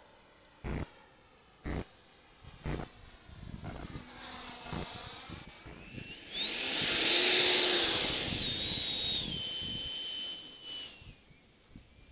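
Large radio-controlled EL-39 model jet's engine whining as the model lands and rolls past. The sound builds from a few seconds in, is loudest for a couple of seconds just after the middle with a high tone that rises and falls, then fades as the jet rolls away. Sharp ticks come about once a second in the first few seconds.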